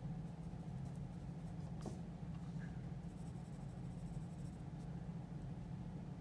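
Graphite pencil scratching faintly on drawing paper in light sketching strokes, over a steady low hum.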